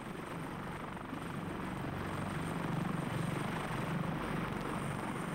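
Coast Guard helicopter running with its rotor turning: steady rotor and engine noise with a fast low beat, growing a little louder about halfway through.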